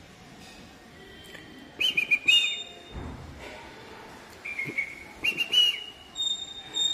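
Red-vented bulbul calling: two short runs of quick whistled notes, about two seconds in and again near five seconds, then a steady high whistled note near the end.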